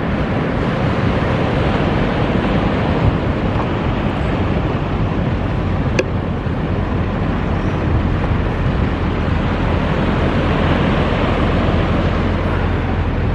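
Surf breaking steadily on the beach, with wind rumbling on the microphone.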